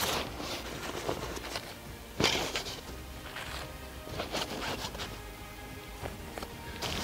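Background music under the rustling and scraping of a nylon backpack and gear being packed into it, the loudest rustle about two seconds in.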